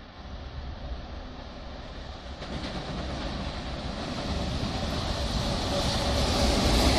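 EF210 electric locomotive hauling a long container freight train, approaching and passing close by. The sound of its wheels on the rails grows steadily louder throughout.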